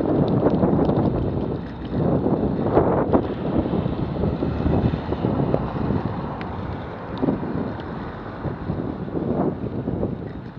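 Wind rushing over the microphone of a camera on a moving bicycle, rising and falling in strength, with tyre noise on a wet road surface.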